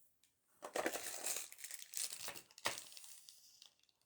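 Plastic crinkling and rustling in several short spells, starting about half a second in, as small toy figures are handled and sorted.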